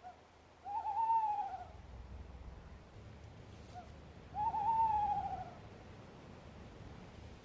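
An owl calling twice, about three and a half seconds apart: each time a short faint note, then a longer call that rises slightly and falls away.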